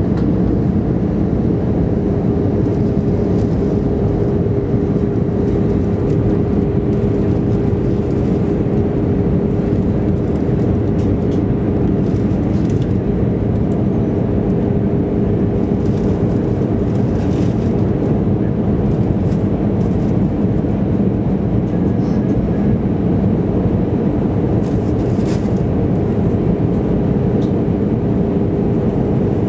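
Airbus A320 cabin noise on approach: a steady roar of the jet engines and rushing air heard from inside the cabin, with a constant hum running through it.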